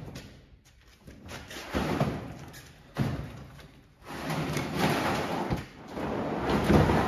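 A stripped-down four-wheeler, stood on its rear wheels, thuds twice against a pickup truck's tailgate as it is tipped over. Then it is shoved into the bed with a longer rough scraping noise that breaks off briefly and starts again.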